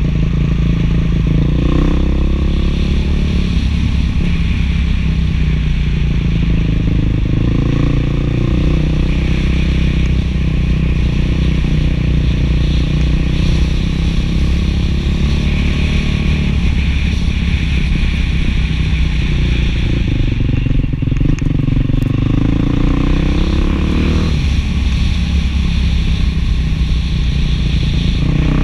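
Beta 500 dual-sport motorcycle's single-cylinder four-stroke engine, breathing through an FMF 4.1 muffler, running under way. Its pitch rises and falls again and again with the throttle, with a longer drop and climb back up about three-quarters of the way through.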